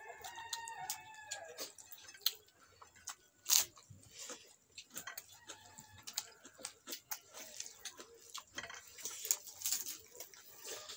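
Close-up eating sounds from a meal of rice and pork eaten by hand: wet mouth clicks and chewing smacks, with a sharp click about three and a half seconds in. A bird calls in the first second and a half with a falling call, and calls again faintly a few seconds later.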